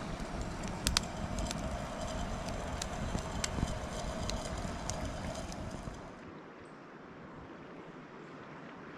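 Steady outdoor background noise with scattered sharp crackles and clicks. About six seconds in it changes abruptly to a quieter, even hiss.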